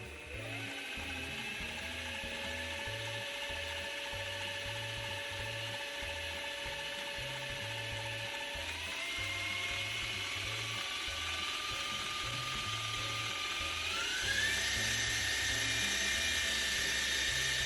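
Benchtop milling machine spindle running with a mechanical whine, stepped up in speed twice, so the whine jumps higher about nine seconds in and again near the end.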